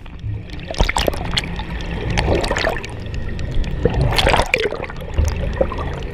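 Seawater sloshing and bubbling around a camera held underwater, heard muffled and loud, with a low rumble underneath and a few short knocks.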